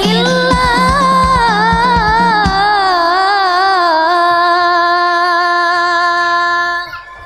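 A cappella group of girls' voices singing an Islamic sholawat, ending on a long final note: the melody winds for a few seconds over percussive beats and a low hum, then holds steady and stops suddenly near the end.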